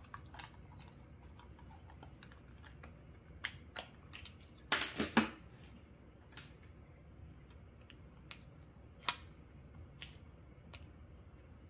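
Scattered light clicks and taps of plastic being handled, with a short crinkly rustle about five seconds in: a pad of index sticky tabs taken from a clear plastic case, and tabs peeled off and pressed onto plastic photocard sleeves.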